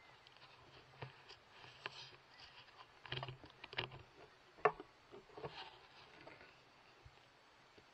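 Faint scattered clicks and rustles of a rifle with its thermal scope being handled and swung, with one sharper click about four and a half seconds in.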